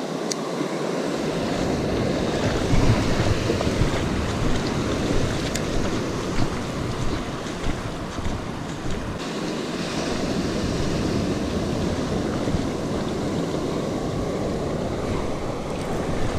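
Ocean surf breaking and washing up over the sand in a steady rush, with wind buffeting the microphone.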